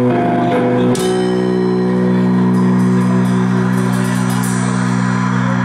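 Metal band playing live: distorted electric guitars and bass change chord about a second in and let it ring out, with a few cymbal strikes in the later seconds.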